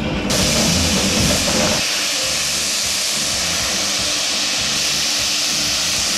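Steam locomotive No. 80002, a BR Standard Class 4MT 2-6-4 tank engine, blowing off steam: a loud, steady hiss that starts suddenly just after the beginning and carries on unbroken.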